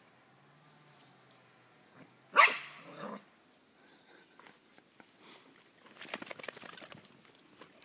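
A puppy gives one loud bark about two and a half seconds in, with a quieter one right after. Near the end comes a rapid patter of scuffling as it tussles with a cat on the grass.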